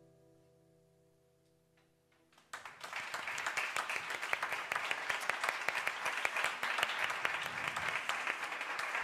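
A final acoustic guitar chord rings out and fades; about two and a half seconds in, an audience breaks into applause that carries on steadily.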